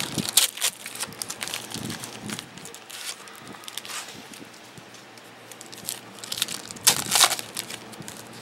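Trading-card pack wrappers being torn open and crinkled by hand, in irregular crackles, with a louder burst of crinkling about seven seconds in.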